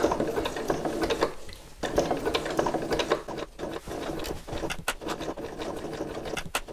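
Electric sewing machine running a close zigzag stitch, its needle clattering rapidly, around the edge of a fabric appliqué. It stops briefly about one and a half seconds in, then runs on.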